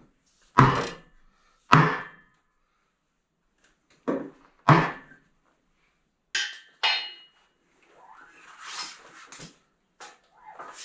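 Hammer blows struck through a wooden block onto a bracket on a steel frame: five spaced knocks in the first five seconds, then two lighter, sharper knocks and some scraping as the part is handled.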